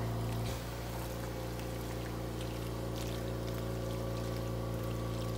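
A steady low hum made of several even tones, with a few faint scrapes and clicks from a spatula stirring a creamy pasta, chicken and broccoli mixture in a skillet.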